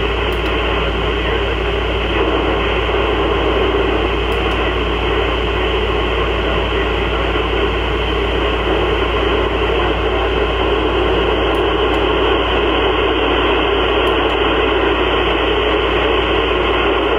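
Steady FM receiver hiss from an Icom IC-705 tuned to the PO-101 (Diwata-2B) amateur satellite's 2 m downlink, with no voice on the channel. It is the open-squelch static of a weak or absent signal between transmissions.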